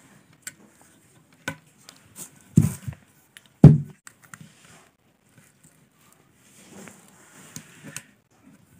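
Snap-blade utility knife cutting and scraping through a rubber cricket-bat toe guard, with scattered sharp clicks. Two loud dull knocks come in the middle, and a soft scraping hiss near the end.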